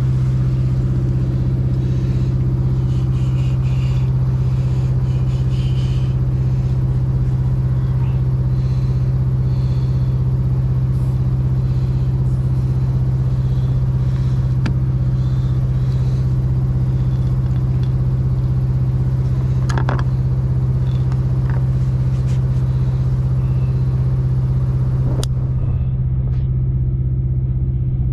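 A truck's diesel engine idling steadily with an even low hum. There are a few light clicks and taps about two-thirds of the way in and again near the end.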